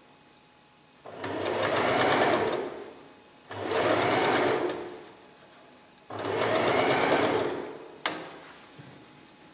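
Electric domestic sewing machine stitching in three short runs of about two seconds each, stopping briefly between them as the fabric is guided, followed by a single sharp click just after the last run.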